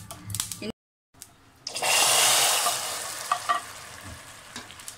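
Hot caramelised sugar with ghee hitting a pot of hot milk payasam, sizzling loudly for about a second and then fading away. Two metal clinks follow.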